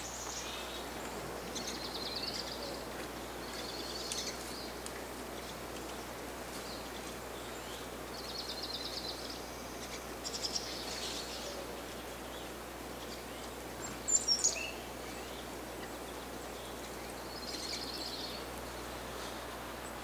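Small songbirds calling now and then over a steady faint outdoor hiss: short high chirps and quick trills, with a louder, sharp burst of chirps about two-thirds of the way through.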